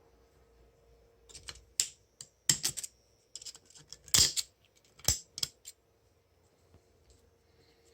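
Metal clutch plates from an automatic transmission's clutch pack clicking and clinking against each other as they are handled, a quick run of sharp clinks in the first few seconds with the loudest just after the midpoint.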